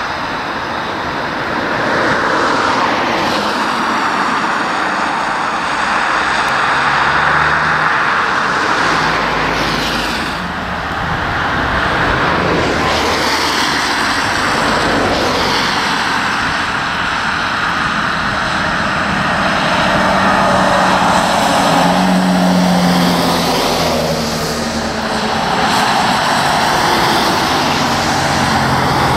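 Heavy vehicles driving by with engine and tyre noise, swelling and easing several times as they pass.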